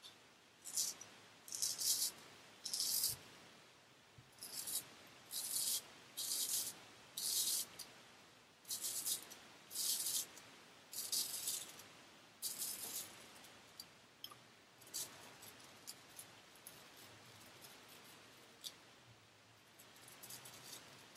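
A T.R. Cadman & Sons hollow-ground straight razor scraping stubble off a lathered cheek in short strokes, about one a second. After about thirteen seconds the strokes become fainter and shorter.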